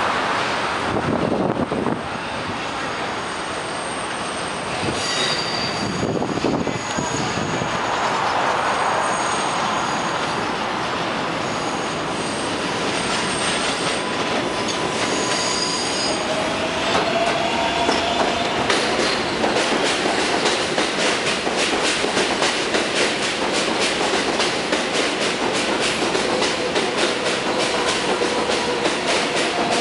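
R142A subway train arriving: its wheels squeal in high steady tones as it rounds the curved track. From about halfway through, the wheels clatter in a steady rhythm over the rail joints as the cars pass close by.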